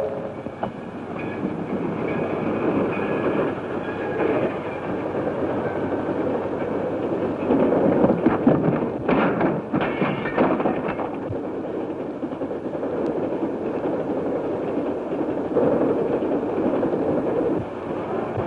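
Steam train running on the rails, a steady clattering rumble, with a run of louder clanks about eight to eleven seconds in.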